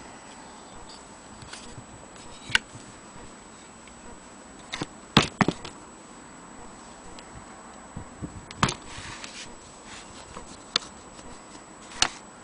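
Several short, sharp clicks and knocks from handling an antique Willcox & Gibbs sewing machine at close range, spaced irregularly, over a faint steady hiss.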